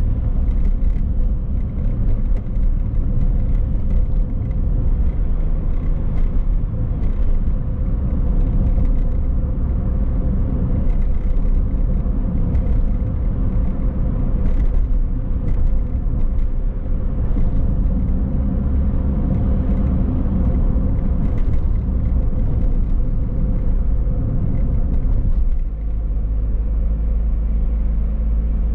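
Car driving through town, heard as a steady low rumble of road and engine noise. Near the end the rumble eases and a steadier, even hum takes over.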